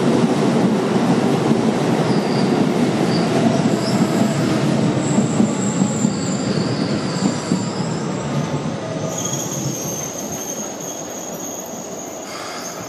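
Keikyu 2000 series electric train pulling out of the station, its wheels rolling over the rails with thin, high squeals that come and go. The noise slowly fades in the last few seconds as the train moves away.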